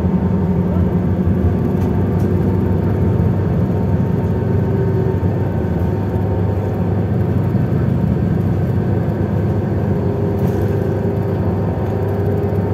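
Cummins ISL8.9 inline-six diesel engine of a Sunlong SLK6112 bus running steadily through a Voith DIWA automatic gearbox, with a faint whine that rises and fades twice.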